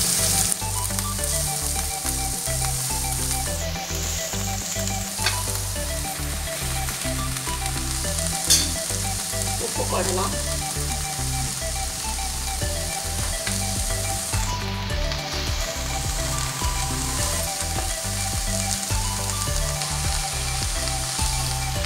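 Shredded cabbage sizzling steadily in hot oil in a non-stick pan, on top of a mustard-seed and dal tempering. A few sharp clicks come through, about five and eight and a half seconds in.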